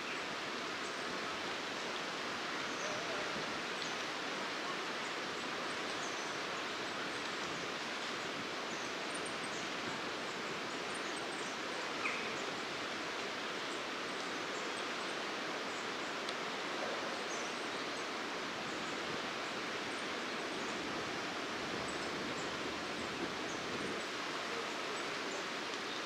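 Steady outdoor hiss with faint, very high, thin goldcrest calls scattered throughout, and one short louder sound about twelve seconds in.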